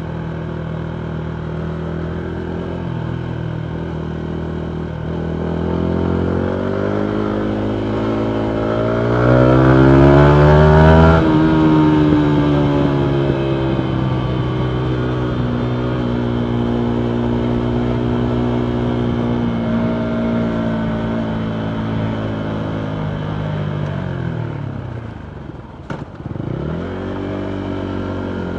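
2019 Yamaha MT125's single-cylinder 125cc engine through a full Akrapovic exhaust while riding. The revs climb steadily for several seconds and fall off abruptly as the throttle closes about eleven seconds in, then the engine holds a steady cruising note. Near the end the revs sink low, with a single sharp crack at the bottom, before the note steadies again.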